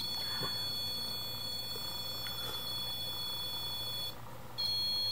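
Ghost-hunting trigger device sounding its electronic alarm: a steady high-pitched tone that cuts out for about half a second near the end and then starts again, a sign the device has been set off.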